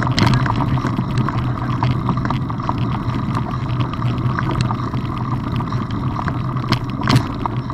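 Mountain bike rolling over a gravel dirt track, heard through a camera mounted on the bike: a steady rumble of tyres and frame, with frequent small clicks and rattles from stones and the mount, one sharper knock near the end.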